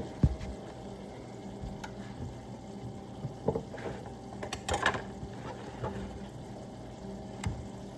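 Ground beef and onions cooking in a skillet, a steady bubbling sizzle in the grease, with a few short knocks against the pan, the loudest cluster a little past halfway.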